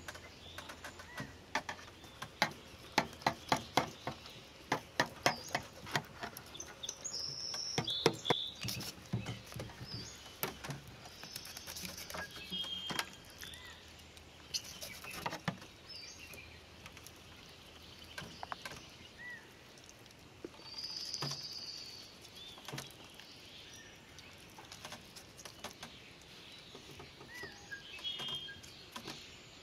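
Knife working on a sturgeon on a metal tray, skinning and scraping it: a quick run of sharp clicks and scrapes in the first eight seconds or so, then sparser ones. Birds chirp now and then.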